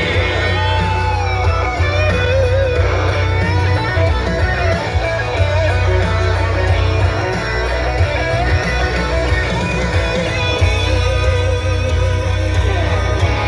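Rock music with electric guitar lead and a steady bass line.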